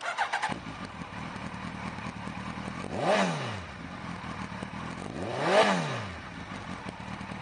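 A 2006 Suzuki Hayabusa's fuel-injected inline-four idling through a Two Brothers aftermarket exhaust, blipped twice about two and a half seconds apart. Each blip rises and falls within about a second, and the second is the louder.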